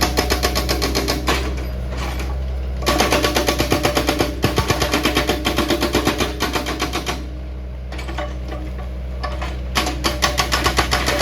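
Excavator-mounted hydraulic rock breaker hammering rock in rapid, even blows, in three bursts: a short one at the start, a long one from about three seconds in, and another starting near the end. Under the blows the excavator's engine runs steadily.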